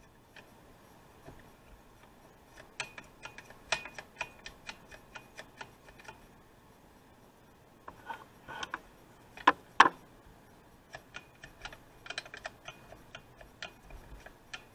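Irregular light clicks and taps of small metal parts being handled by hand on an old chainsaw, with a few louder knocks about eight to ten seconds in.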